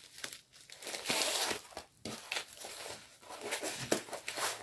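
Packaging of a diamond painting kit being handled and opened: crinkling and rustling, loudest about a second in, then a few short crackles.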